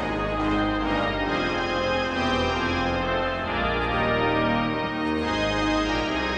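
Ballpark organ playing a slow tune in sustained, held chords over a steady bass line.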